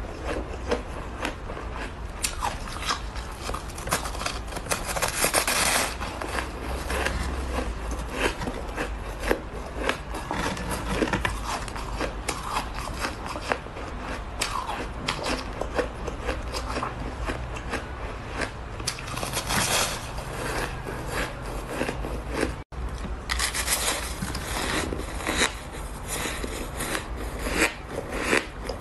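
Crunching and scraping bites of packed shaved ice, close to the microphone: a dense, continuous run of crisp crackling crunches. The sound cuts out for an instant about 23 seconds in, then the crunching resumes.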